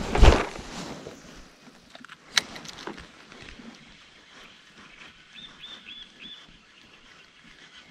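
A spinning-rod cast: a loud swish and clothing rustle at the start, then a single sharp click about two and a half seconds in. The rest is quiet, and a bird gives a quick run of five short, high chirps around the middle of that quiet stretch.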